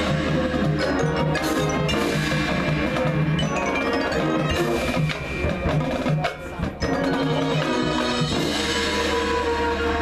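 High school marching band playing its field show: wind instruments hold chords over front-ensemble mallet percussion such as marimbas and vibraphones, with struck percussion hits. The sound drops off briefly about five seconds in and again around six and a half seconds.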